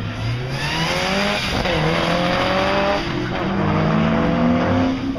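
Rally car engine accelerating hard through the gears, getting louder over the first second. Its pitch climbs, then drops at each upshift, about every one and a half seconds.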